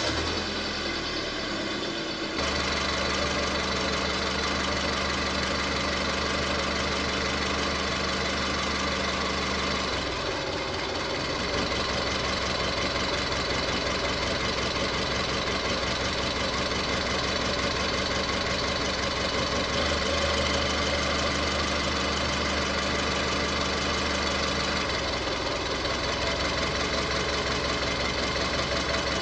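Car engine idling unevenly with a cylinder misfire, later traced to cylinder 3. Its note changes a few times, about 2 seconds in, around 10 seconds, around 20 seconds and again near 25 seconds, as ignition coil connectors are unplugged one at a time to find the misfiring cylinder.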